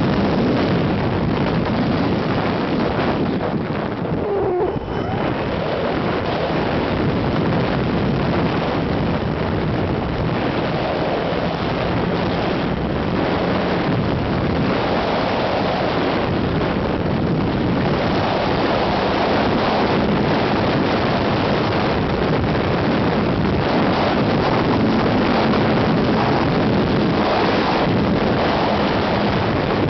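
Steady, loud wind noise rushing over the onboard camera's microphone as the Phoenix 2000 RC glider flies, with a faint steady hum underneath. The rush dips briefly about four to five seconds in.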